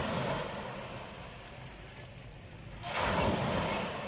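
Small waves breaking and washing up a sand-and-pebble beach: one surge fading away at the start and another breaking about three seconds in.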